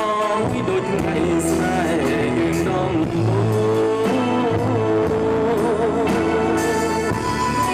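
Live rock band playing: an electric guitar carries a bending melodic line over bass and a drum kit with cymbal hits.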